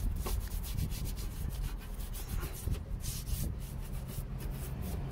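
Stiff bristle brush scrubbing cleaning solution into a grimy car suspension arm, in quick back-and-forth strokes.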